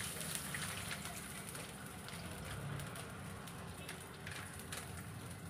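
Milk being poured into a frying pan of hot ghee, which crackles and sizzles with many small pops.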